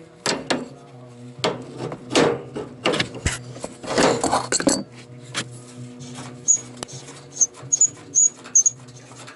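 Adjustable wrench clinking and scraping against the brass flare nut of a copper propane line as the nut is loosened from the furnace's gas inlet: a string of sharp metal clicks and knocks, busiest in the first five seconds. Near the end a few short, high chirps.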